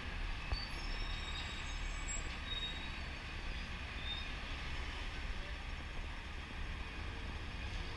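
Busy city street traffic: a steady low rumble of passing cars and buses, with a few brief high squeaks in the first few seconds.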